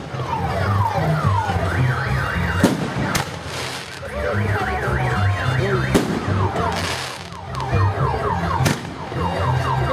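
Car alarm going off, cycling through series of falling whoops and spells of fast warbling tones. Several sharp firework bangs cut across it, about three seconds in, at six seconds and near nine seconds.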